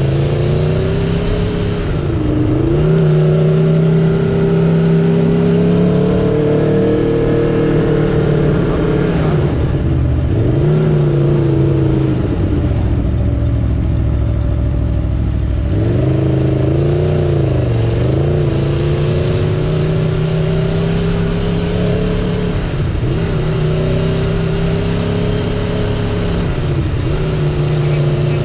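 Aprilia Tuono V4 Factory's V4 engine heard from onboard, running under load with its note dipping and climbing back again about six times as the throttle is eased and reopened.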